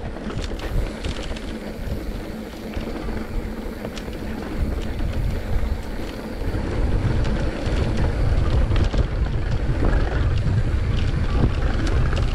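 Wind buffeting the camera microphone over the rattle and clicks of a mountain bike riding down a dry dirt trail. It gets louder about halfway through.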